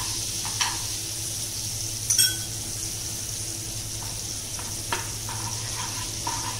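Butter sizzling as it melts in a nonstick pan, with a plastic spatula stirring and knocking against the pan a few times. The loudest knock comes about two seconds in and rings briefly.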